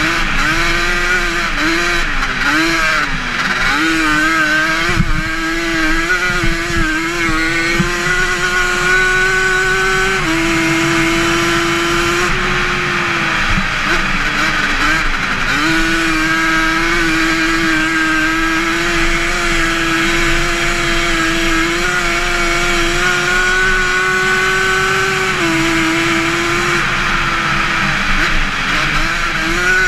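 Yamaha Banshee's twin-cylinder two-stroke engine running hard at high revs around a dirt flat track. Its pitch wavers for the first few seconds, then climbs slowly on the straights, dropping sharply about ten seconds in and again some fifteen seconds later.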